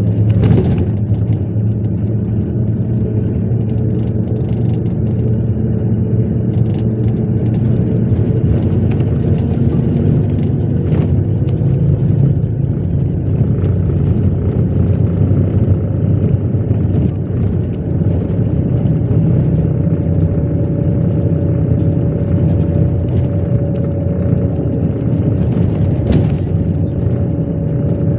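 MAZ 103 city bus driving, heard from inside the passenger cabin: a steady engine and road hum with a whine that slowly climbs in pitch as the bus gathers speed and then holds steady. A few sharp knocks from the body rattling are heard.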